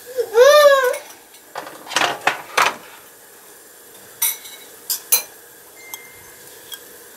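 Glass bowl knocking and clinking against the rim of a metal cooking pot as chopped nopales are tipped into the broth: three knocks around two seconds in, then a few sharp clinks around four and five seconds. Just after the start there is a brief high tone that rises and falls.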